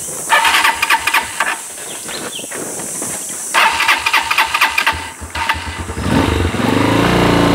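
Dual-sport motorcycle's electric starter cranking in two tries; on the second the engine catches about five seconds in and settles into a steady idle.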